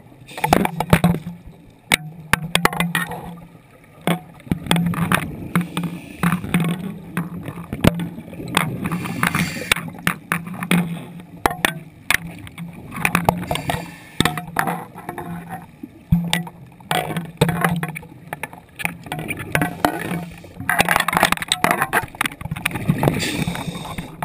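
A scuba diver breathing through a regulator underwater: exhaled bubbles gurgle out in bursts of about two to three seconds, roughly every four seconds, with quieter inhalations between, about six breaths in all.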